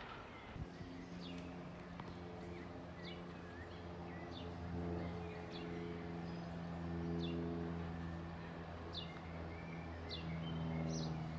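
Diesel locomotive engine heard at a distance, a steady low drone, with small birds chirping repeatedly over it.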